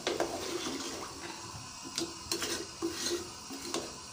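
A metal ladle stirring watery aloo gosht curry in a metal pot: liquid sloshing, with a few sharp clinks of the ladle against the pot.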